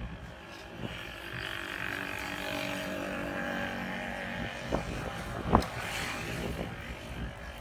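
A motor vehicle's engine going past, a steady hum with a slowly shifting pitch that builds about a second in and fades after the middle. Two sharp clicks come near the middle, the second the loudest sound here.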